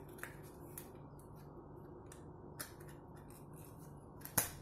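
A few light clicks and scrapes of a thin card sheet and sheet-metal parts being handled and fitted into a small metal flashlight housing, with one louder, sharper click near the end.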